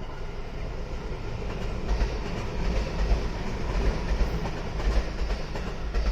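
Senseki Line local electric train passing at close range: a steady rumble and hiss, with the wheels knocking over rail joints, loudest in the middle of the pass.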